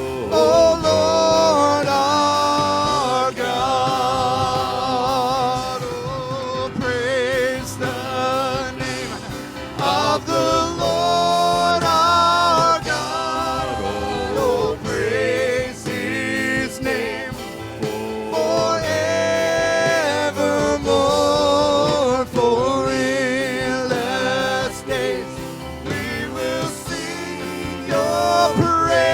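Live gospel worship music: a singer holds long notes with a wavering vibrato over steady band accompaniment.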